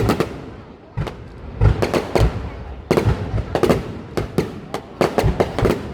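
Aerial fireworks going off in a rapid, irregular string of sharp bangs and crackles, bunched in clusters with short lulls between them.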